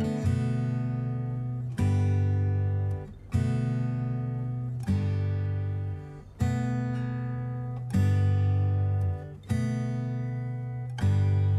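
Background music: chords strummed on an acoustic guitar about every second and a half, each ringing out and fading before the next.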